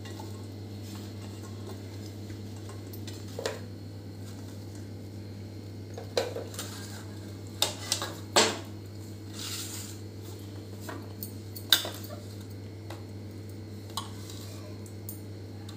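Scattered light clinks and taps of a stainless-steel mixing bowl as chopped vegetables and spices are tipped into it, with a brief scrape about halfway through, over a steady low hum.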